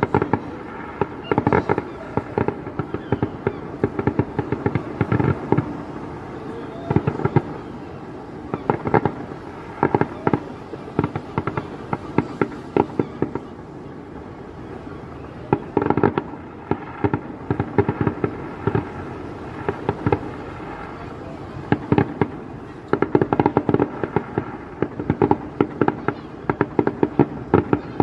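Fireworks going off in rapid crackling volleys of many sharp bangs, volley after volley with short lulls between.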